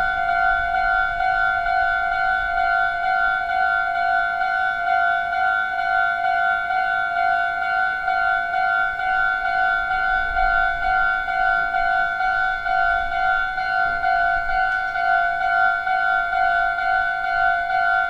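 Japanese railway level-crossing warning bell ringing its steady, rapidly repeated electronic "kan-kan" tone. It signals that the crossing is closed for an approaching train.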